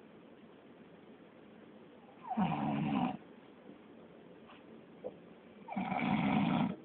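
A man snoring: two snores, each just under a second long, about three and a half seconds apart.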